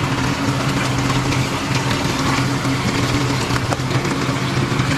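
Water splashing steadily down into a reef aquarium sump through the filter-sock stage, over a steady low electric hum from the sump's running pumps.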